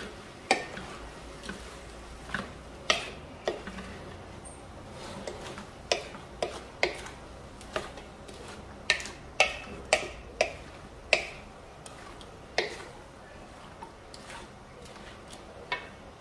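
Wooden spatula knocking and scraping against a metal wok while sausage and vegetables are stir-fried: irregular sharp taps, sometimes several a second and sometimes a couple of seconds apart.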